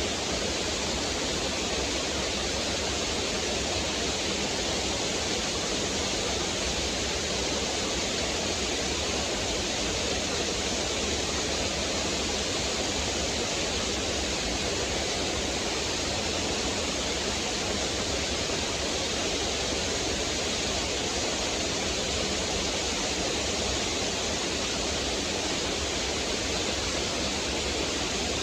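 Small waterfall splashing over rocks into a stream: a steady, unchanging rush of water.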